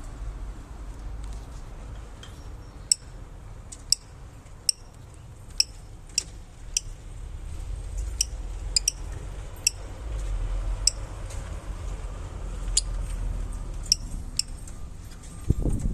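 Lovebirds giving short, sharp, high chirps, about fourteen at irregular intervals, over a low steady rumble.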